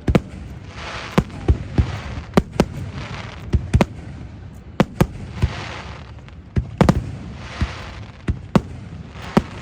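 Fireworks display: aerial shells going off in irregular sharp bangs, some in quick pairs, with swells of crackling between them from the bursting effects.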